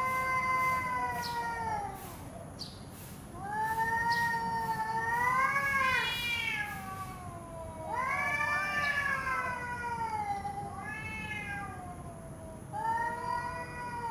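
Domestic cats yowling at each other in a territorial standoff: about five long, drawn-out, wavering caterwauls with short pauses between them.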